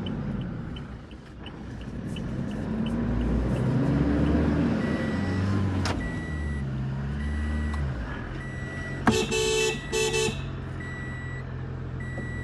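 Toyota car's engine heard from inside the cabin while driving, its pitch rising and falling with acceleration. A horn sounds twice in quick succession about nine seconds in, and a short beep repeats steadily through the second half.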